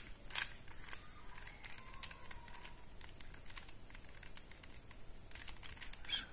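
QJ Super Square-1 puzzle's plastic layers being turned by hand: a run of light clicks and rattles, the sharpest in the first second.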